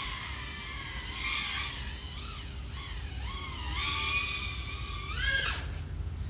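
Brushless motors and Gemfan propellers of an iFlight AOS 3.5 V5 FPV quadcopter whining in flight, the pitch rising and falling with throttle. Near the end the whine climbs steeply, then drops away abruptly. A low rumble runs underneath.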